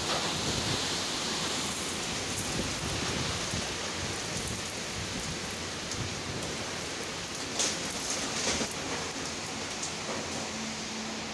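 Heavy monsoon-style rain falling steadily in strong wind, an even hiss that swells briefly twice about two-thirds of the way in.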